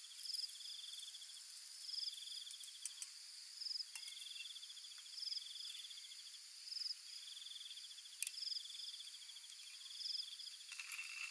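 An insect chirping in a repeating pattern: a buzzy trill about a second long and a short, higher note, recurring every couple of seconds. A few light clicks sound now and then, at about 4 and 8 seconds in.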